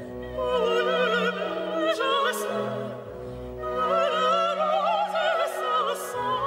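Operatic singing with strong vibrato over an orchestral accompaniment, laid in as background music.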